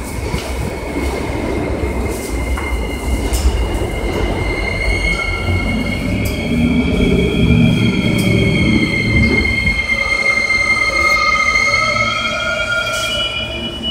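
Subway train wheels squealing on the rails: several long, steady high squealing tones over the train's low rumble. The squeal grows stronger about four seconds in and holds.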